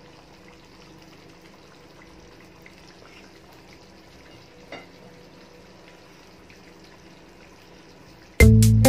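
Soya-chunk curry simmering gently in an aluminium karahi on low heat: a faint, steady bubbling hiss, with one light tap about five seconds in. Loud music with a steady beat starts near the end.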